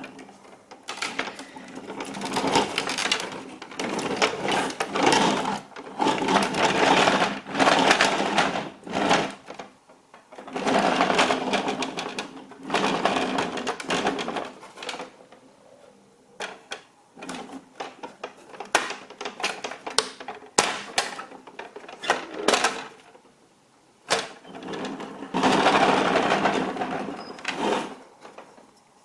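Plastic toy truck rolling and crushing things, its wheels and body rattling in runs of a few seconds, with sharp clicks and crackles in the pauses between.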